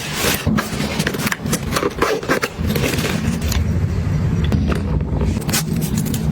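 Items being handled and put away: packaging crackling and scraping with frequent light clicks and knocks, over a steady low rumble.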